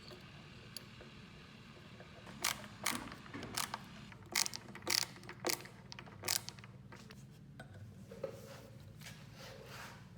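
A quick run of sharp clicks and knocks, about nine in four seconds, then a few softer, duller sounds near the end: something hard being handled or worked by hand.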